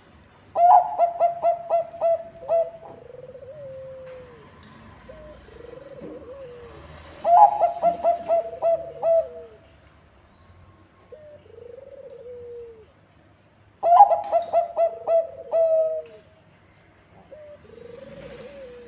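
Zebra dove (Bangkok-bred perkutut) singing its cooing song three times. Each song is a quick run of six or seven staccato coos lasting about two seconds. Softer, lower, drooping coos come between the songs.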